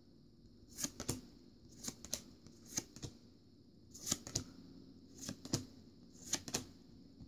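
Pokémon trading cards being slid off one another one at a time from a freshly opened booster pack: faint short card-stock slides and snaps, often in pairs, about one a second.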